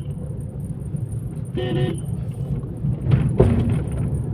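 Maruti Baleno driving over a rough road, a steady low rumble of road and tyre noise. There is a short horn toot about a second and a half in, and a louder bump a little after three seconds in. This is a road test after a steering rack repair.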